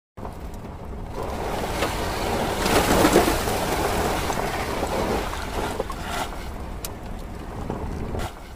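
Whoosh sound effect for an animated logo intro: a rushing noise that swells to its loudest about three seconds in, then slowly fades, with a few faint ticks near the end.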